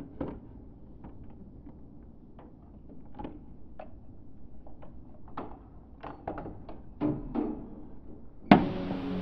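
Clicks and light knocks of a clear plastic flap on a car-wash control panel being lifted and handled. Near the end comes one sharp, loud knock, and music begins right after it.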